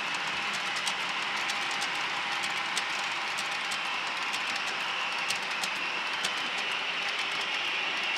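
HO-scale model tank cars rolling along the layout track: a steady whirring rumble of small metal wheels with frequent light clicks as the wheels cross the rail joints.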